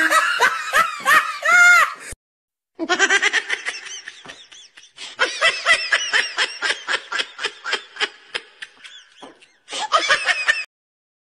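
Dubbed-in laughter sound effect: a person laughing hard in quick, rhythmic bursts. It breaks off briefly about two seconds in, picks up again, and cuts off suddenly just before the end.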